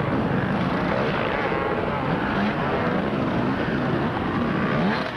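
Enduro dirt-bike engines revving hard, the pitch rising and falling as the bikes climb through the gully one after another.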